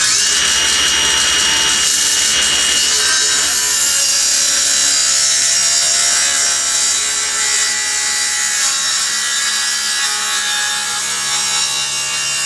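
Table saw ripping a taper through a thick oak board on a taper jig: a loud, steady cutting noise with the motor's whine, the blade in the wood the whole time.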